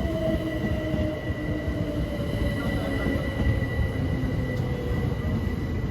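Class 387 Electrostar electric multiple unit running through the platform with a low rumble, its motor whine slowly falling in pitch as it slows, over a few steady high tones.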